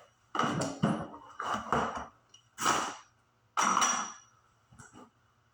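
Metal clanks and rattles of a BMX bike's front wheel being handled and worked free, in four loud bursts about a second apart, the last with a brief high ring.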